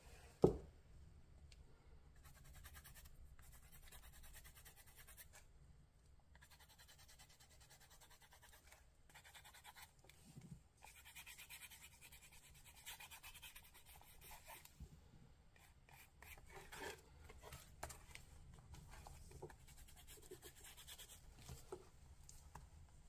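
Faint, irregular scratchy rubbing of a fingertip working gold gilding wax over embossed paper along the edges of a journal page, with one sharp knock about half a second in.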